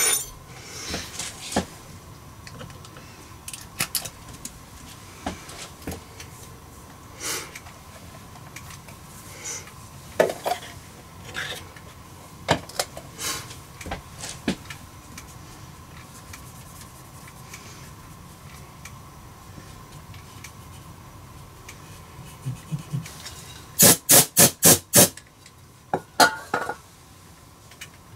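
Light clicks, taps and scrapes of a small metal pick and fingers working on a breaker switch panel, irregular and spaced out. Near the end comes a quick run of about six sharp clicks. A faint steady high hum sits underneath.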